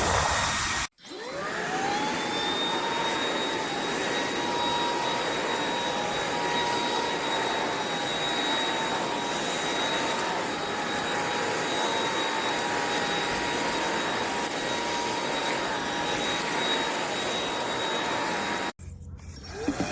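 Eureka RapidClean Pro cordless stick vacuum's motor spinning up, its whine rising in pitch over about a second, then running steadily with a high whine over rushing air. It cuts off abruptly near the end and starts spinning up again just at the close.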